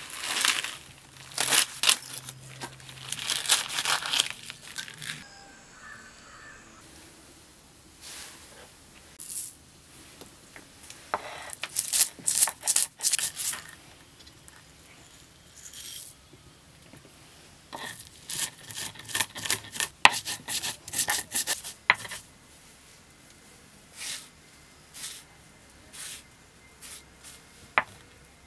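Crisp tearing and crunching as leafy greens are cut with a curved hand-held blade, then bursts of gritty crunching and scraping as dry spice seeds are crushed with a stone on a flat stone grinding slab, with a few light clicks near the end.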